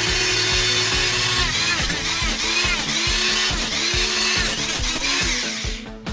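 A power tool running hard, its pitch dipping and recovering several times as it bites into the work, over background music; it stops near the end.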